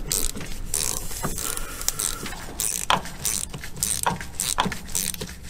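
Ratchet wrench and truck air-brake slack adjuster clicking as the adjuster's square nut is turned to back off the brake: a run of sharp, irregular clicks.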